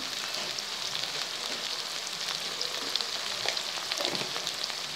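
Chopped onion, tomato and green chilli masala sizzling steadily in hot mustard oil in a pan, with a few small pops and crackles.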